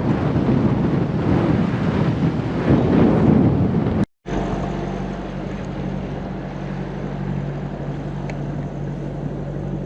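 Wind buffeting the microphone over rushing water for about four seconds, then an abrupt cut to the steady drone of a sailboat's inboard engine running in gear while motor sailing into the wind.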